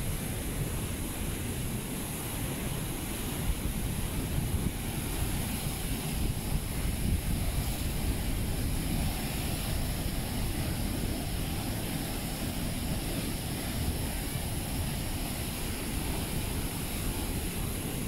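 Steady rushing roar of Basaseachi Falls, a high waterfall plunging into its canyon, mixed with wind buffeting the microphone.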